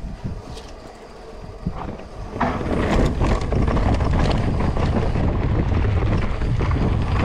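Mountain bike rolling over rock with scattered clicks and rattles, then running fast down a dirt trail from about two and a half seconds in: a loud steady rumble of tyres and bike rattle, with wind on the microphone.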